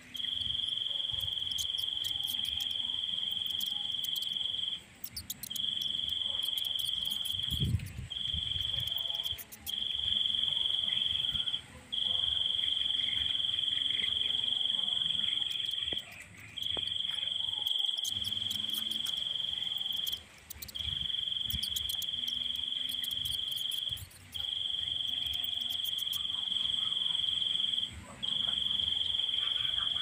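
An insect trilling on one steady high pitch in long unbroken bursts of one to four seconds, each broken by a short pause. A brief low rumble comes about a quarter of the way in.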